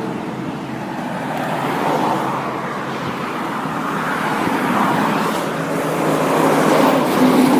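Road traffic: motor vehicles driving past, the tyre and engine noise swelling and fading several times.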